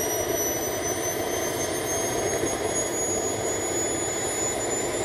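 Small turbojet engine running at steady power: a loud, continuous rush of exhaust with a high whine that slowly rises in pitch.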